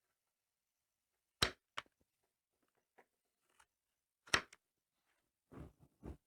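Sharp clicks and knocks of things being handled on a workbench: two close together about a second and a half in, a louder one about four seconds in, then softer rustling handling noise near the end.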